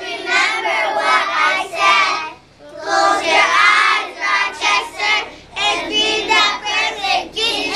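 A group of young children singing together in unison, in phrases with a short pause for breath about two and a half seconds in.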